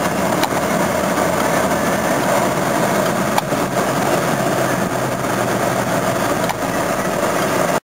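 A V8 Jaguar's engine running with road noise, heard from inside the cabin while driving; steady, with a couple of faint clicks. The sound cuts off suddenly near the end.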